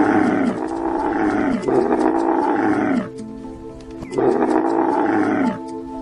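Dromedary camel groaning: a string of long, loud calls, each falling in pitch, with a pause of about a second before the last one, over background music.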